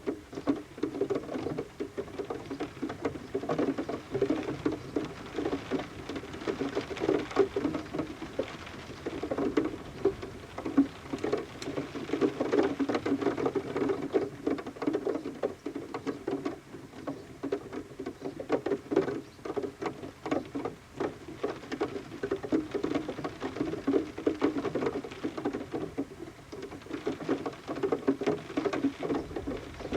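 Rain pattering on a window pane, heard from inside the room: a dense, continuous run of small taps that swells and eases, with water dripping off the roof.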